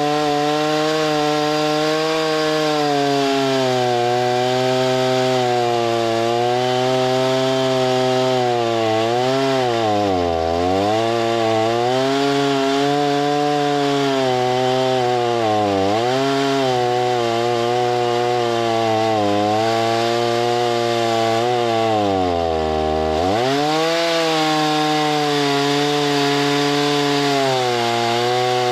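Gas-powered saw engine running hard while milling lumber, its pitch sagging under load several times, most deeply about two-thirds of the way through, then recovering.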